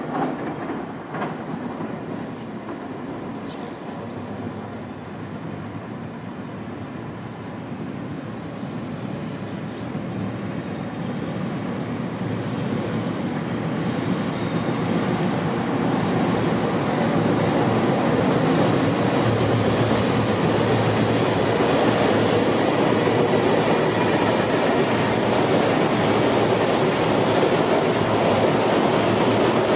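JR Freight container train, hauled by an electric locomotive, running over a steel girder bridge. The wheels make a steady rumble on the rails that grows louder through the first half and stays loud as the container wagons pass close by.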